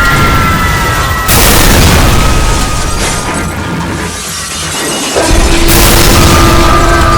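Loud crashing booms, one starting about a second in and another about five seconds in, layered over music with steady held tones.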